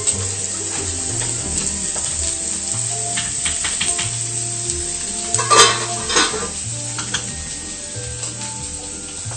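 Food sizzling as it fries in a hot pan, over background music. Two sharp knocks come about five and a half and six seconds in.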